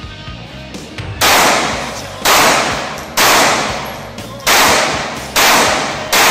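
Handgun fired at an indoor range: a string of single shots about a second apart, the first about a second in. Each shot rings on and dies away in the range's echo.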